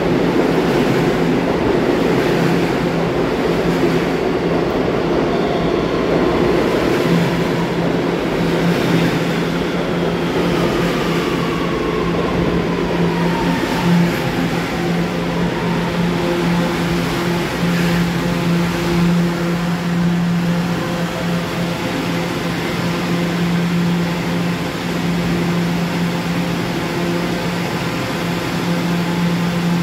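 Subway train moving along an underground station platform: the steady noise of the cars on the rails over a constant low hum, with a faint whine that falls in pitch between about six and fourteen seconds in as the train slows.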